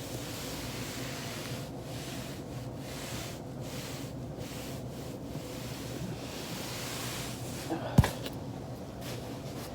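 A body rolling on a foam roller, a steady rubbing hiss, then a single sharp joint crack about eight seconds in as a back or hip joint pops under the roller's pressure.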